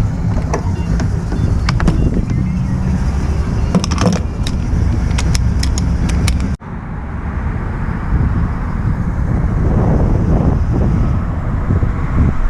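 A steady low rumble, with scattered sharp clicks and knocks in the first half. It cuts out abruptly about halfway through and again at the end.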